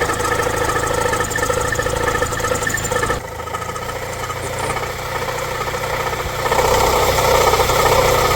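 Mahindra XUV500 engine running at idle with a heavy knocking noise from the front of the engine, the sign of a failing crank pulley that was close to breaking apart. The sound changes about three seconds in and gets louder near the end.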